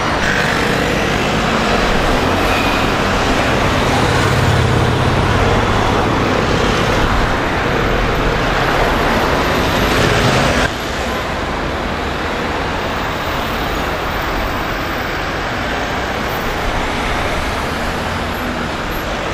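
Road traffic on a busy city boulevard, cars driving past close by. A louder, deeper rumble from a passing vehicle builds in the first half, and the level drops abruptly about ten seconds in.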